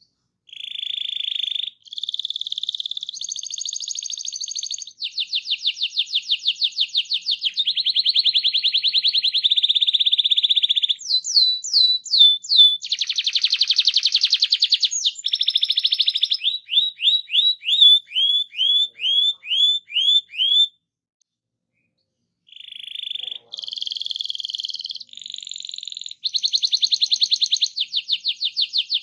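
Domestic canary singing in long phrases of rolling trills and fast repeated notes, with runs of short downward-sweeping notes. It breaks off for about two seconds roughly two-thirds of the way through, then starts again.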